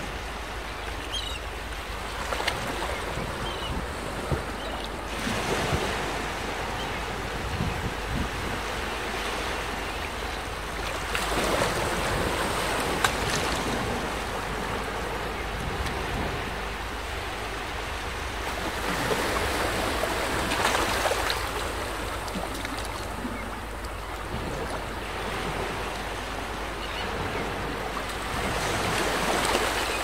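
Sea waves washing and breaking against a rocky shore, the noise swelling up every several seconds, with wind.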